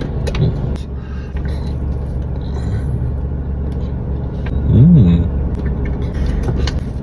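Steady low rumble like a car running, heard from inside the cabin, with small clicks of eating and a short rising-and-falling tone about five seconds in.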